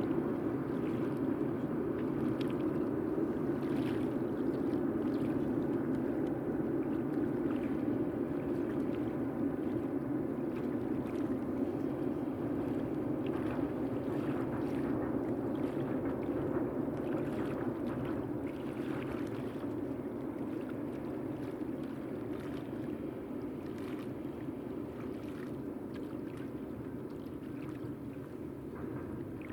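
Freight train rolling across a rail bridge: a steady rumble of wheels on the rails with faint clicks, slowly fading.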